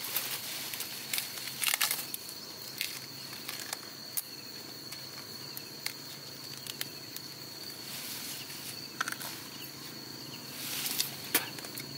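Flattened corn stalks and leaves rustling as they are handled, with several short sharp snaps as stalks or husks break. A steady high insect drone runs underneath.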